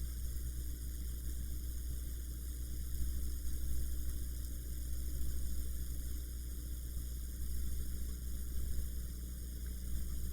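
Steady low hum with a faint hiss and no distinct events.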